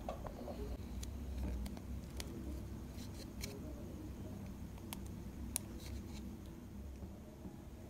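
Faint handling sounds over a low hum: a scatter of soft clicks and taps as small plastic tubes of hair-dye cream are squeezed out into a plastic bowl.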